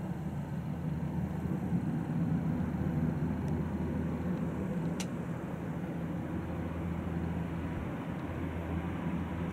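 Lockheed C-130T Hercules's four Allison T56 turboprop engines at takeoff power as it rolls, lifts off and climbs out, a steady low propeller drone that grows a little louder in the first two seconds.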